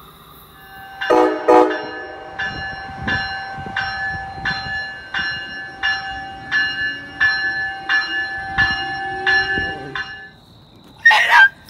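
A bell rings in even strokes, about one and a half a second, over a held ringing tone, after two louder strokes at the start; it stops about ten seconds in. Near the end comes a short, loud, distorted voice-like burst.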